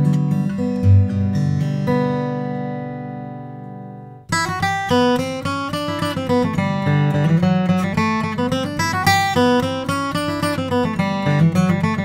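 Martin D-42 dreadnought acoustic guitar, Sitka spruce top with Indian rosewood back and sides, played solo. A chord rings out and fades away over about two seconds, then a brisk picked passage starts a little after four seconds in.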